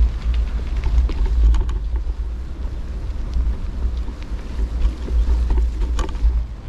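Wind buffeting the microphone as a heavy low rumble, with scattered light clicks and rattles and one sharper click near the end.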